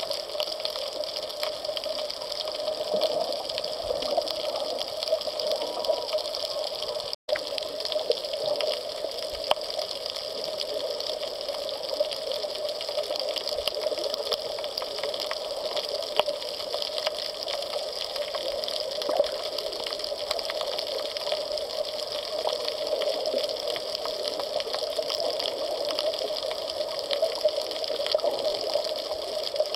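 Underwater ambience on a coral reef recorded with the camera submerged: a steady wash of water noise with constant fine crackling clicks. The sound drops out for an instant about seven seconds in.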